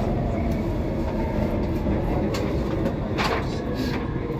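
Copenhagen Metro driverless train running through a tunnel, heard from inside: a steady low rumble of wheels on rail, with a few sharp clicks, the loudest about three seconds in.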